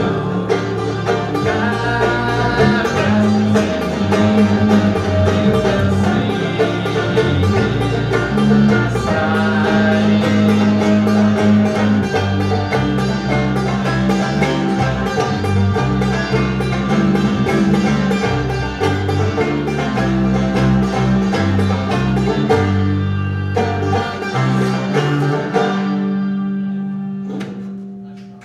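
Banjo and bowed double bass playing together, the bass holding long low notes under the banjo's quick picking. Near the end the banjo drops out and a last held bass note fades away as the song ends.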